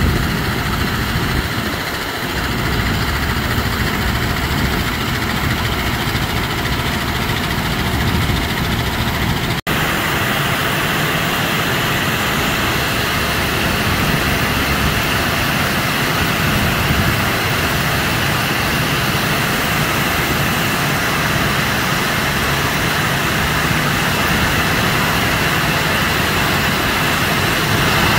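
Belt conveyor running steadily as it loads rice grain into a barge's hold, with a continuous hiss of grain pouring off its end. The sound drops out for an instant about ten seconds in, then returns with a little more hiss.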